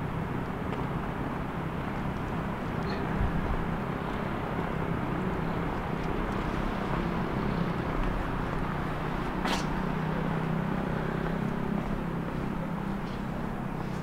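Steady urban background noise with a low hum and a distant vehicle rumble. A single sharp click comes about nine and a half seconds in.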